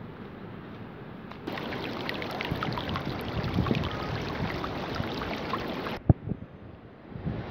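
Shallow river water rushing and splashing over stones close to the microphone, full of small crackling trickles. It starts abruptly about a second and a half in and cuts off near the end, giving way to a quieter outdoor hush with one sharp click.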